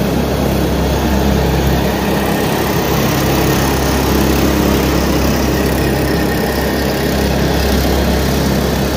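Small lawn-tractor-type gasoline engine running steadily as a home-built go-kart drives along at low speed.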